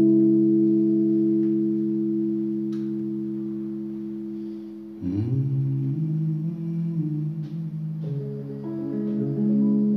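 Solo electric bass guitar playing chords. A chord rings out and slowly fades, then about five seconds in a new chord is struck and further notes follow.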